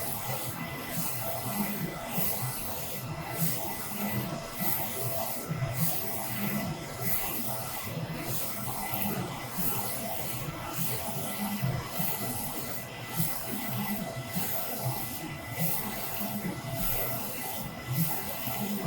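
Focus Alpha Max 6250 UV flatbed printer printing: the print-head carriage sweeps back and forth with a repeating swish about once a second over a steady machine hum.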